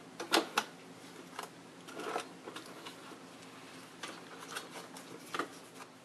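Scattered light plastic clicks and knocks as the brush roll of a Neato robot vacuum is handled and seated into its housing, the two sharpest clicks coming about half a second in.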